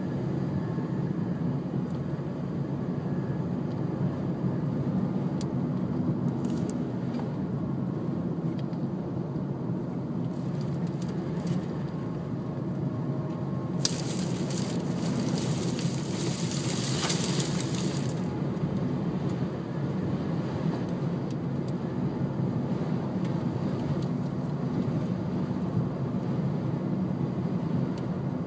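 A car driving, heard from inside the cabin: a steady low rumble, with scattered light ticks and, about halfway through, a loud hiss lasting about four seconds.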